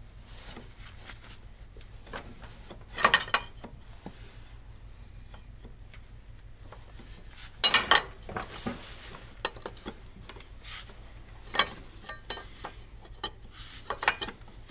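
Metal hand tools clinking and knocking on a GAZ-66 V8's cylinder head during disassembly, with four louder sharp metallic strikes: one about three seconds in, the loudest near the middle, another about two-thirds through and one near the end. A low steady hum runs underneath.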